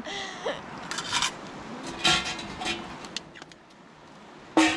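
A table knife scraping and clicking against a glass dish as butter is sliced, with scattered knocks of camp cookware and a louder clink near the end.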